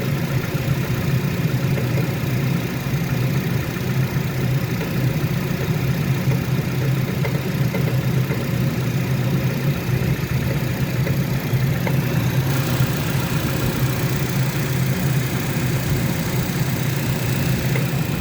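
Renault Kaptur 2.0 engine idling cold, with a faint noise under the hood that falls between a squeak and light tapping and comes at irregular intervals. It appears about thirty seconds after a cold start and fades as the engine warms.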